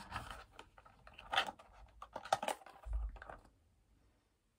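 Small cardboard box handled in the fingers: scattered light clicks, taps and scrapes, with a low bump about three seconds in, fading out soon after.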